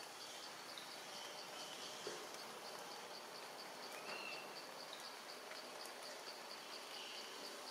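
An insect chirping in a steady rhythm, about four short high chirps a second, over an even background hiss.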